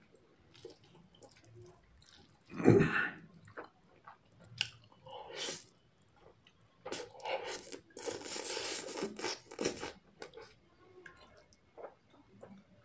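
Close-up eating sounds: chewing and smacking on spicy instant noodles and chicken, with a short loud breathy burst about two and a half seconds in and a long noisy slurp of noodles lasting about three seconds from around seven seconds in.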